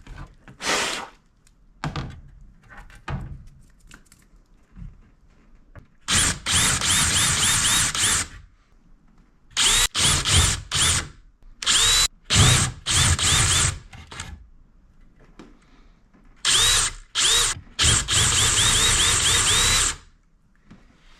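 A handheld power tool cutting vent holes into a PS5's plastic cover, run in a string of short bursts with brief pauses between, each burst sweeping up in pitch as the tool spins up and bites. Light handling knocks come first, before the cutting starts about six seconds in.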